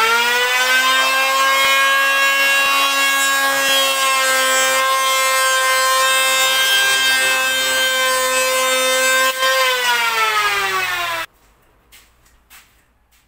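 Electric power tool motor spinning up to speed, running with a steady high whine for about nine seconds, then winding down in pitch and cutting off about eleven seconds in.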